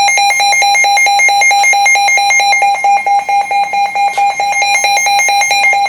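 Weather radio alert alarm going off: a loud, rapid, evenly pulsed beep on one steady pitch, several beeps a second, signalling that a new warning is being received.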